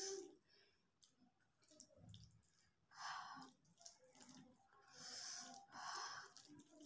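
Close-miked breathing, three loud breaths about three, five and six seconds in, over faint wet squishing and small clicks from a hand mixing rice with fish curry on a plate.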